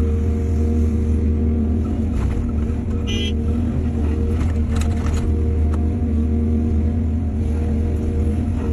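Diesel engine of heavy earthmoving machinery running steadily with a low hum, with a short high squeak about three seconds in and a few metallic knocks around five seconds.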